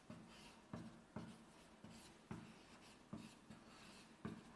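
Faint writing on a board: about seven short scratching strokes and taps, spaced unevenly.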